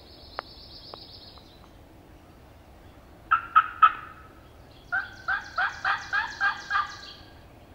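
Turkey calling made by mouth, with hands cupped to the mouth: three sharp yelps, then after a pause a run of about seven evenly spaced yelps, roughly three a second. A songbird trills briefly at the start.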